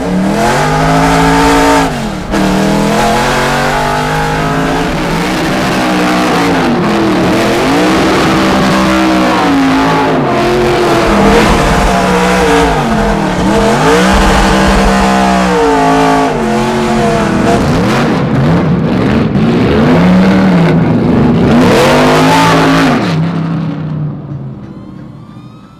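Straight-piped V8 of a 1970 Camaro Trans Am race car, loud, revving up and down again and again as it is driven hard, then fading away near the end.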